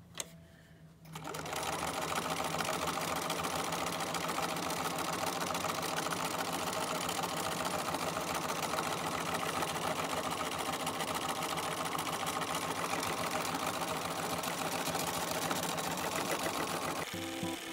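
Domestic sewing machine stitching steadily at speed during free-motion quilting with the feed dogs down, starting about a second in. Music comes in near the end.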